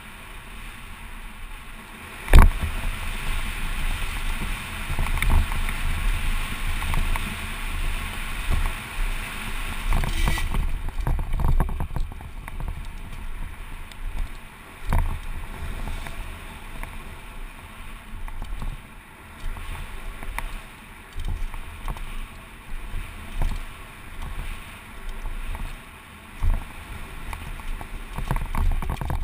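Wind buffeting a helmet-mounted camera and the tyres of a Giant Glory downhill mountain bike rolling fast over gravel, with the bike rattling and several sharp knocks from hits on the trail. The loudest is a hard landing off a drop about two seconds in.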